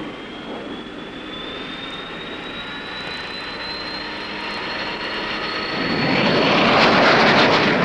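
Jet aircraft engine noise from a McDonnell Banshee twin-jet fighter just after its catapult launch: a steady whine that slowly rises in pitch, with the rushing jet noise growing louder over the last two seconds.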